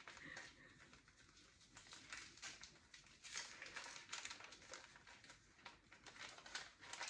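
Faint, irregular rustling and crackling of packaging being handled, with small scattered ticks and no steady rhythm.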